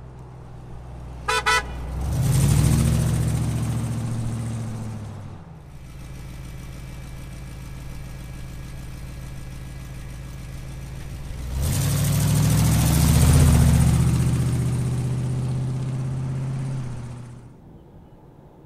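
A vehicle horn toots twice briefly. Then the Scout II's crate GM 350 small-block V8 revs up and pulls away, eases off and runs steadily for several seconds, then builds again on a second loud pass before fading away near the end.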